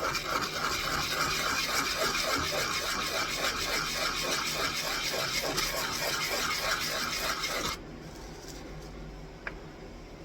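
Wooden peg being sanded by hand, in quick back-and-forth strokes about four a second, stopping abruptly after about eight seconds; a light click follows near the end.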